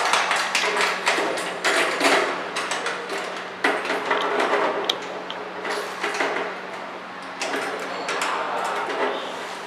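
Irregular metallic clicks, taps and scrapes of a hex key being fitted into and turned in the socket-head bolts of a steel machine frame, tightening them down, over a steady low hum.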